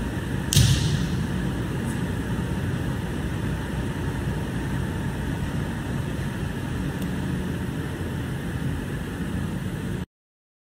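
Steady ventilation hum filling a large, echoing sports hall, with one sharp smack from the wushu performer's movement about half a second in. The sound cuts off abruptly near the end.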